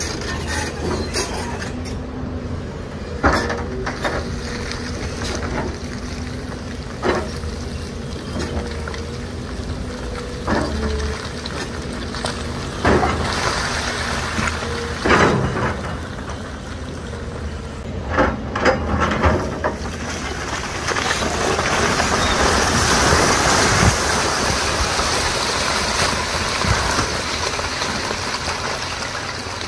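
Doosan crawler excavator's diesel engine running under load with a steady hum, its bucket knocking and scraping on rock several times. From about two-thirds of the way in comes a longer rush of loose rock and soil sliding as a large boulder is shifted.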